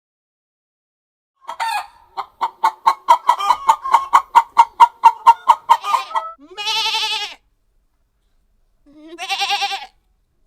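Farm animal calls: a rapid run of about twenty clucks, then two short wavering bleats.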